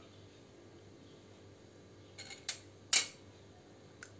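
Stainless steel ladle clinking lightly against steel vessels a few times while gravy is ladled over misal, the sharpest clink about three seconds in.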